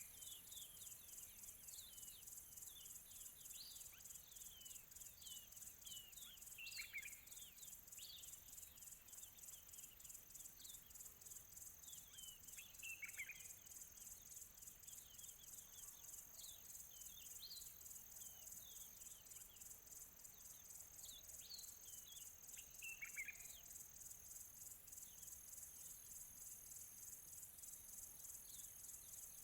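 Faint field crickets trilling steadily in a high, fast-pulsing chorus, with birds calling in the distance: many short falling chirps and a few louder descending calls.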